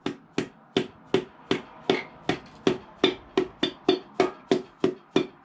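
Steady, even hammer taps, about three a second, each with a short ring: a piston being tapped down through a ring compressor into the cylinder bore of a small-block Chevy V8.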